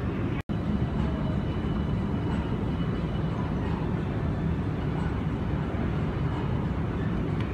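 Steady low background rumble of an airport terminal concourse, with a brief total dropout about half a second in where the recording cuts.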